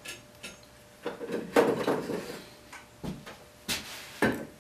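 Irregular knocks and clunks of a small metal hide-glue pot, a glue jar standing in hot water, being picked up, carried and set down on a wooden workbench. The sharpest knocks come near the end.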